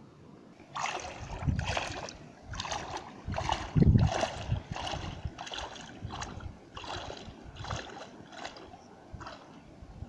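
Legs wading through shallow river water, splashing and sloshing in a steady walking rhythm of about three strides every two seconds. There is a loud low thump about four seconds in.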